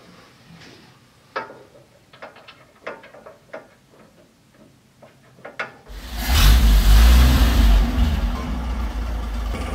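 Light clicks and knocks of parts being handled and fitted under a truck's dashboard, then, about six seconds in, the 1940 Chevrolet truck's engine comes in suddenly and loud. It is loudest for about two seconds, then settles to a steady run.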